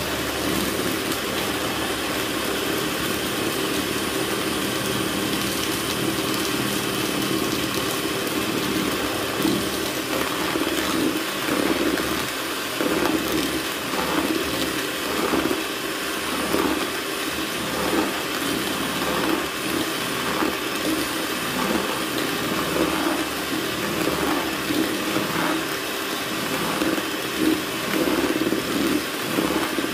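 Electric hand mixer running at high speed, its twin beaters whipping eggs and sugar in a plastic bowl. A steady motor whir that swells and dips unevenly from about ten seconds in.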